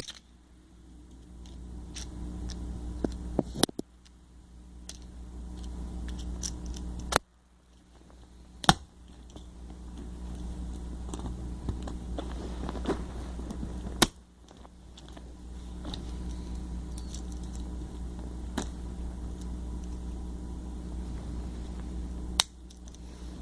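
Small clicks and scrapes of hands and tools working at a small plastic remote controller to get its batteries out, with a few sharper clicks, over a steady low hum.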